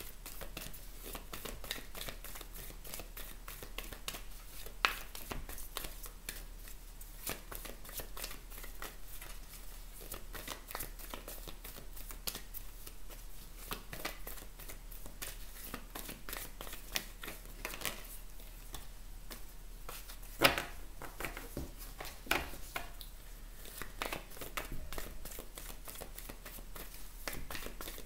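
A deck of large oracle cards being shuffled by hand, one hand to the other: a steady run of soft, rapid card flicks and slaps, with a louder snap about five seconds in and another about twenty seconds in.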